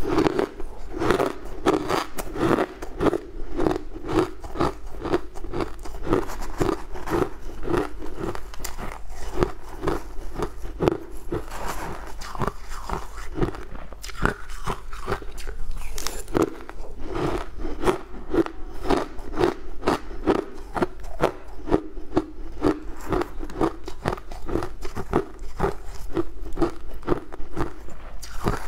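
Close-miked crunching and chewing of a mouthful of sweetened, coloured crushed ice: crisp crunches come in quick succession, two to three a second, without a pause.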